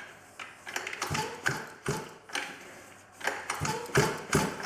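A run of irregular clicks and taps from hands working the choke and fuel primer of a 49cc two-stroke pocket bike, with the engine not yet running.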